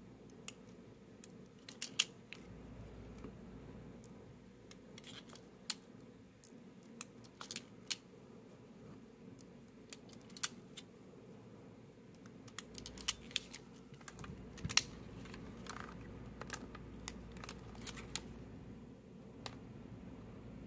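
Scattered small clicks and taps as BBs are pressed one by one into the chambers of an airsoft revolver's swung-out cylinder, with metal handling clicks from the revolver. One click about fifteen seconds in is louder than the rest.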